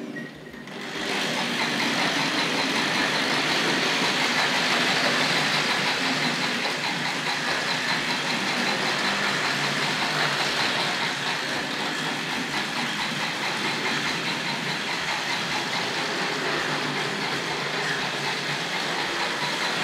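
Tri-ang Hornby TC Pacific 00-gauge model steam locomotive running along the track with its chuff-chuff exhaust-steam sound box working, a steady rushing chuff noise with faint clicks from the wheels on the rails, starting about a second in.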